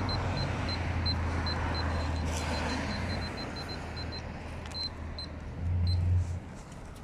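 Handheld radiation survey meter beeping, short high pips several times a second that thin to a few scattered ones after about four seconds, over a low steady rumble.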